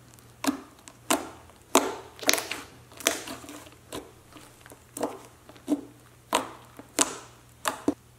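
Hands poking, squeezing and stretching a thick hot pink clay slime (glue activated with borax, mixed with white clay), giving about a dozen short, sharp squishes and pops, roughly one every half second to second.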